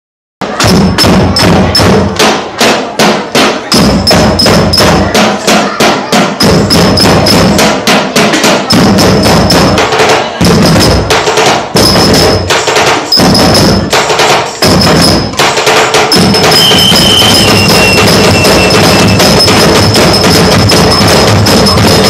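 Group percussion ensemble with a large drum and knocking, wood-block-like strikes, playing a loud, fast, steady beat. About 16 seconds in, the playing becomes denser and continuous.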